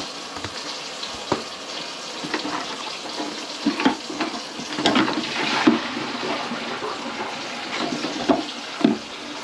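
Water running and splashing in a sink, with scattered knocks and clatters of things being handled in it, louder around the middle.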